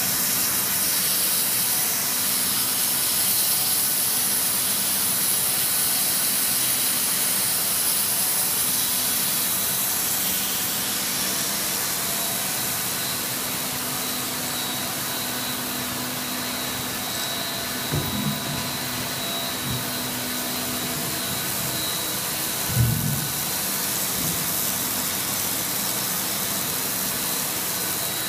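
JLCD 50-inch seamless circular knitting machine running at speed: a steady, loud mechanical hiss and whir from the needles and cam ring, with a thin constant whine over it. Two short low thumps come about 18 and 23 seconds in.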